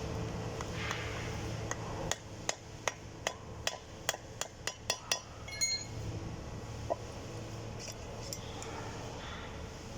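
A hammer striking a steel part of a geared winch, most likely the low-speed shaft bearing being knocked into or out of its seat. There are about ten quick blows in three seconds, then a ringing metallic clink and a few lighter taps.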